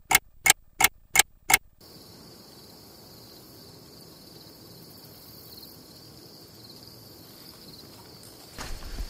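A clock-ticking sound effect: about five sharp, evenly spaced ticks, roughly three a second, stopping after about two seconds. Then a faint, steady chorus of insects such as crickets from the lakeshore.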